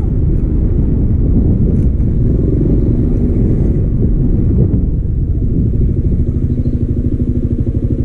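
Honda Forza scooter riding along a dirt road: the engine runs under a heavy rumble of wind and road noise. In the last couple of seconds it slows and settles into a lower, evenly pulsing engine note.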